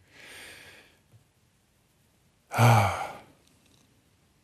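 A man breathes out audibly, then gives a short voiced sigh about two and a half seconds in, falling in pitch, as he collects himself.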